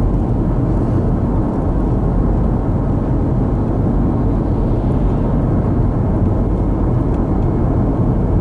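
Steady road and engine noise of a moving car, heard from inside the cabin: an even low rumble that does not change.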